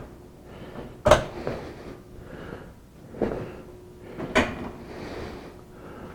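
Caster wheel locks on a portable platform scaffold being snapped into place: three sharp clacks, the loudest about a second in, with softer handling noise between them.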